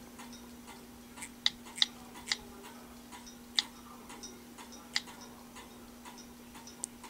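Typing on the touchscreen keyboard of an HTC Droid Eris: irregular, sharp keypress clicks spaced a fraction of a second to over a second apart, over a faint steady hum.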